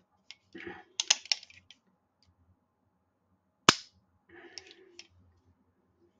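Kimber 1911 pistol being function-checked after reassembly: the steel slide is worked with sliding metallic clicks, and the action lets go with one sharp metallic snap about three and a half seconds in, followed by more clicking and sliding.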